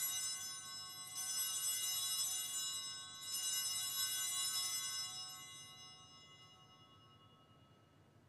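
Altar bells rung at the elevation of the consecrated host: a bright metallic ringing that is shaken again about a second in and once more about three seconds in, then dies away over the next few seconds.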